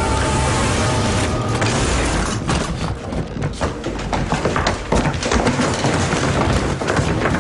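Film sound effects: a loud rushing noise that stops about a second and a half in, followed by a dense, rapid clatter of knocks and thumps.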